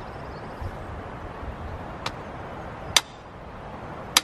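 A hammer striking a metal fence post to drive it in: three sharp, ringing metallic strikes about a second apart, starting about halfway through, the last two loudest.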